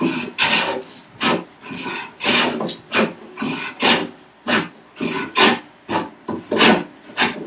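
Hand plane cutting across a curly maple board in quick back-and-forth strokes, each stroke a short rasping shave, about two a second.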